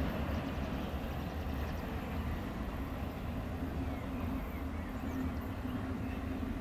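Distant diesel engine of a Đuro Đaković–Jenbach shunting locomotive running steadily as it moves away: a low, even hum.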